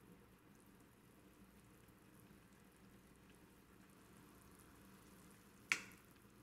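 Near silence with a faint steady hum, broken by one sharp click about five and a half seconds in.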